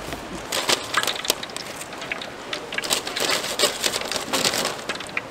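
Battered twigim frying in hot oil, the oil crackling and popping irregularly.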